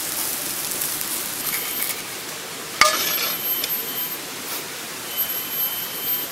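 A metal utensil clinks once against a cast-iron skillet about three seconds in, with a short ring. Under it runs a steady hiss, and a high, thin tone comes and goes.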